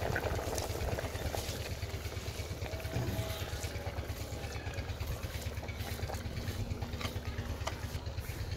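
Large aluminium pot of mutton broth at a rolling boil over a strong burner: a steady low rumble with a rapid flutter, and a few faint clicks as rice is tipped in from a clay bowl.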